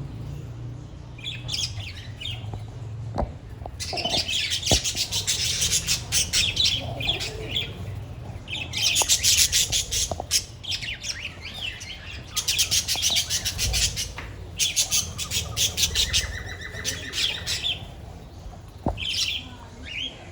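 A flock of budgerigars chattering and squawking together in rapid, high warbling spells that come and go, with a few sharp clicks and a low steady hum underneath.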